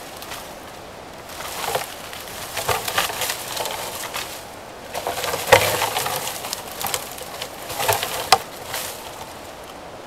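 Two bull moose sparring, their antlers clacking and rattling together in a run of irregular sharp knocks, the loudest about halfway through.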